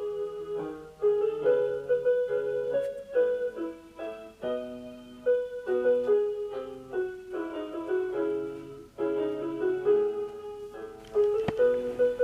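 Solo piano background music: a melody played over lower accompanying notes.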